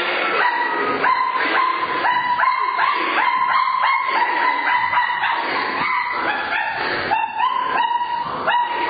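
Rapid high-pitched yipping and yelping like a small dog: many short calls, several a second, at nearly the same pitch.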